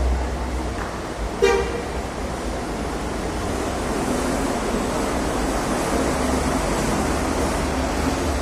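A Hino RK8 coach's diesel engine running low and steady as the bus pulls away, with one short horn toot about a second and a half in.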